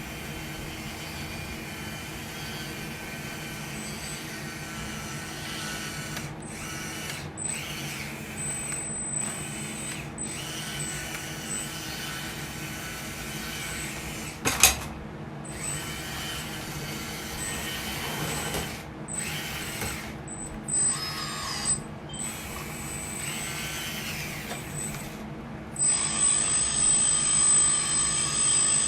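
Electric hydraulic pump and motors of a radio-controlled hydraulic construction machine running under load: a steady whir underneath, with a higher whine that rises, drops and cuts in and out as the controls are worked. A sharp click comes about halfway, and the whine gets louder near the end.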